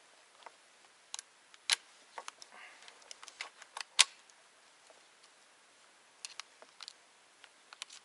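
CZ 527 bolt-action carbine in .223 Remington being handled: a string of sharp, irregular metallic clicks from its action and fittings, the loudest about four seconds in.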